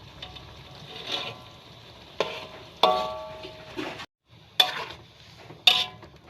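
A metal utensil stirring shrimp and squid in a pot of coconut-milk broth, knocking against the pot with about four sharp, ringing clanks over a soft steady simmering noise.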